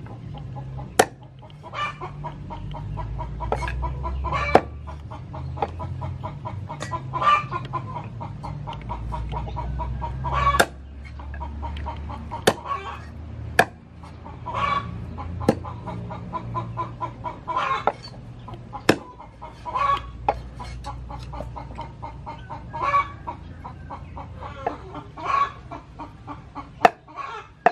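Hens clucking over and over, broken by several sharp, irregularly spaced knife chops as chicken is cut up on a board.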